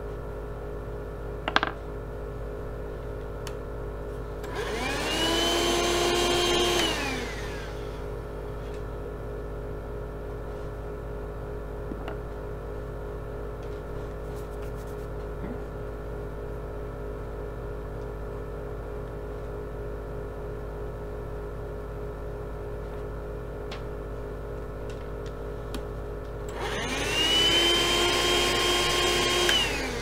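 Dirt Devil Scorpion cordless hand vacuum switched on twice for about three seconds each: its motor whine rises as it spins up, holds steady, then falls away as it is switched off. A steady hum runs underneath, and there is one sharp click about a second and a half in.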